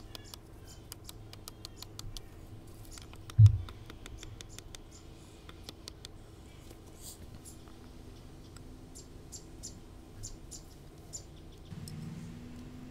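Small clicks and scratches of a steel file's tang being bent by hand over a wooden block and against a rock, with one dull thump about three and a half seconds in. A low hum comes in near the end.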